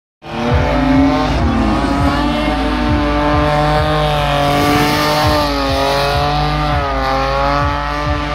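A car engine held at high revs, rising and falling in pitch, while its rear tyres spin and smoke through a burnout.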